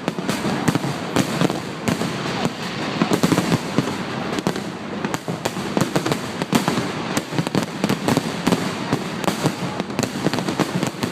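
Fireworks bursting in a rapid, irregular barrage, several sharp bangs and cracks a second, over a continuous rumble and crackle, heard through a phone's microphone.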